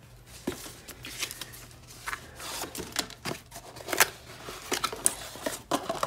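A cardboard product box is handled and opened: irregular scraping and rustling of the card flaps, with a few sharp clicks and taps, the sharpest about two-thirds of the way through.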